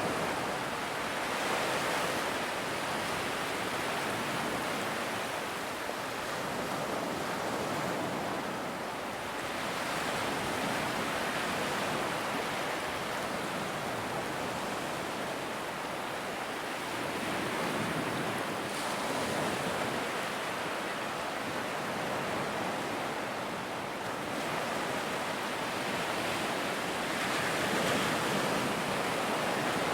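Large ocean waves breaking on a beach: a continuous wash of surf that swells and eases back several times as successive waves come in.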